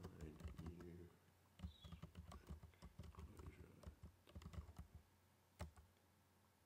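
Computer keyboard being typed on: a run of quick, light keystrokes, then one sharper keystroke about five and a half seconds in, the Return key entering the typed command.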